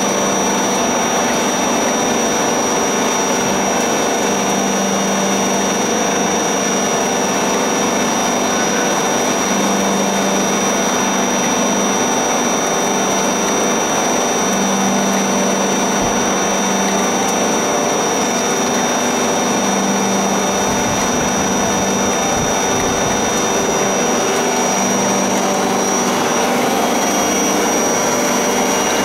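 MK-65 screw oil press running under load as it presses nigella seed, its motor and drive making a loud, even mechanical noise with a thin, steady high whine.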